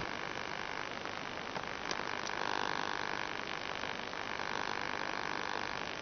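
Steady electrical hum and hiss on the quadcopter's analog FPV camera and video-link audio, with a few faint clicks as the landed quad is handled.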